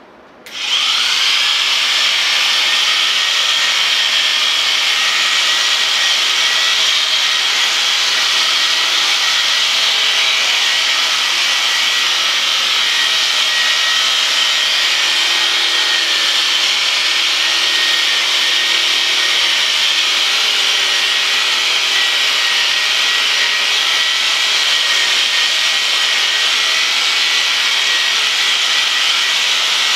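Corded electric sheep shears switched on about half a second in, the motor spinning up in pitch and then running with a steady high whine while they cut the ram's fleece around the neck.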